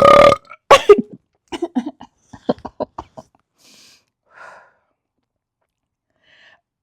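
A woman's loud beer burp right at the start, held for most of a second, then a second shorter burp falling in pitch, from a stomach full of freshly chugged beer. A quick run of short, breathy bursts follows.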